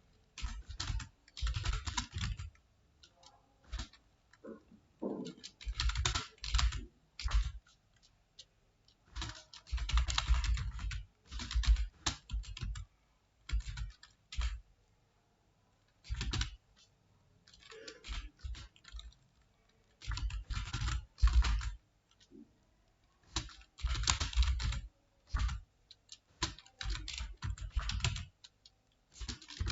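Computer keyboard typing: runs of quick keystrokes lasting a second or three, broken by short pauses.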